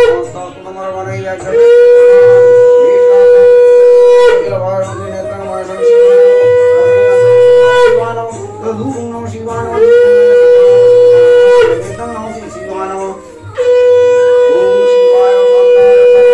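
Conch shell (shankha) blown in long, loud blasts at one steady pitch: one dies away just after the start, then four more follow, each held for about two to three seconds, with short gaps between them.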